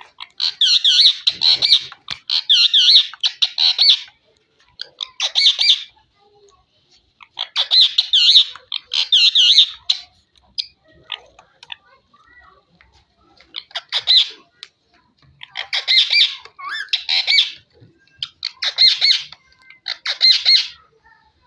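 Rose-ringed (ringneck) parakeet squawking: loud, harsh calls in about ten bouts of a second or two each, with short pauses between them.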